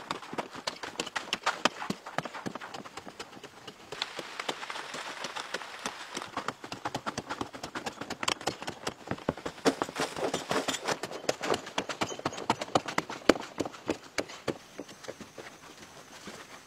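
A long-handled digging tool striking and scraping into packed sandy earth, with loose soil falling away. The knocks come quick and uneven, several a second.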